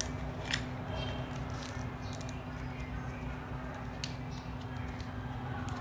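Faint, scattered crinkles of fresh pechay and banana leaves handled by hand as a fish is wrapped and tied, over quiet background music.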